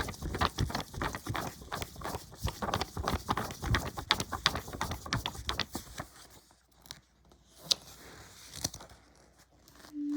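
Paper rustling, crinkling and tapping from a book's pages being handled and turned. It is dense for about six seconds, then thins to a few scattered clicks, and a short steady hummed note comes in at the very end.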